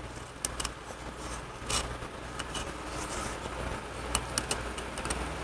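Light metallic clicks and scraping of a thin steel oil-control-ring rail being spiraled by hand into its groove on a Harley Knucklehead piston, a scattered dozen small ticks over a low steady hum.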